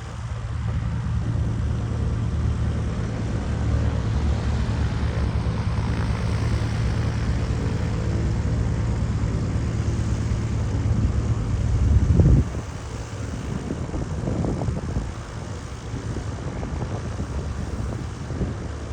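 Light propeller airplane's piston engine running with a steady low drone. It grows slightly louder, then drops away suddenly about twelve seconds in, leaving a fainter, uneven engine and wind sound.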